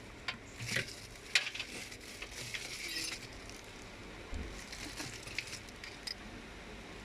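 Irregular light clicks and clinks with short rustling bursts, the sharpest click about a second and a half in.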